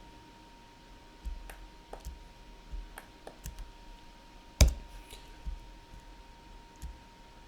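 Scattered clicks of a computer keyboard and mouse during 3D modelling work, about a dozen spread irregularly, with one sharper, louder click about halfway through. A faint steady high whine sits underneath.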